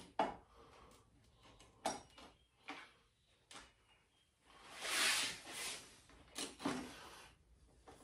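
Nomad luggage rack rail being worked into place by hand against a KTM EXC's rear plastic bodywork: scattered knocks and clicks, and a longer scraping rub about five seconds in, the loudest sound.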